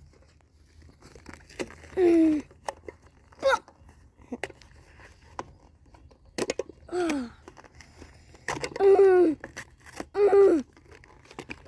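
A child's short wordless vocal sounds, about five brief grunts or hums with falling pitch, over quieter rustling, crinkling and clicks of a pencil case and its packaging being opened by hand.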